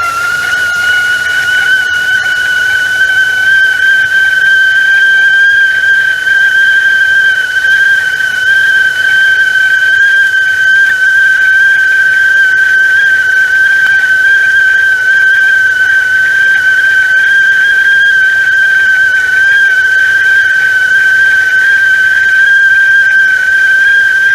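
Stovetop teapot whistling loudly as its water boils: one continuous high whistle that rises slightly in pitch over the first few seconds, then holds steady.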